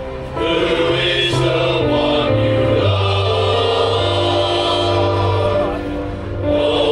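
Male voice choir singing in harmony, holding long chords over a low bass line that shift every second or two.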